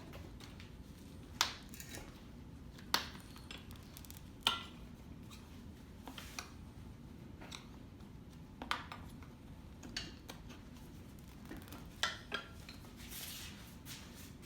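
Metal tire spoons clinking and scraping against a dirt bike's spoked wheel rim while levering the tire bead off, with a sharp clink every second or two and a brief scrape near the end.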